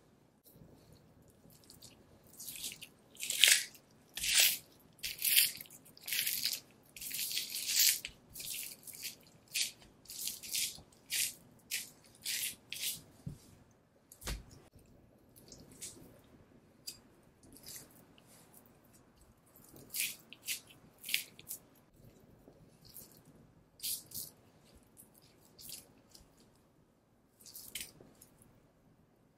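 Knife slicing fat and sinew away from a Kuroge Wagyu beef round: a run of short, crisp, wet scraping strokes, closely packed in the first half and sparser later.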